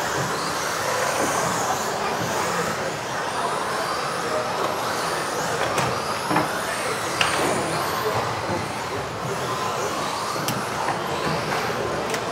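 Several electric RC off-road buggies racing together: overlapping high-pitched motor whines rising and falling as they accelerate and brake, over tyre noise, with a few short sharp knocks.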